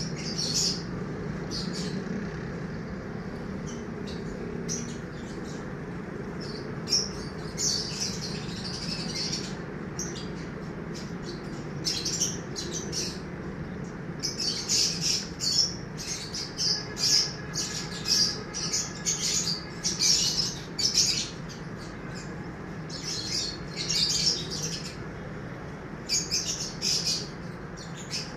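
Small birds chirping in quick, high-pitched clusters, busiest in the second half, over a steady low background hum.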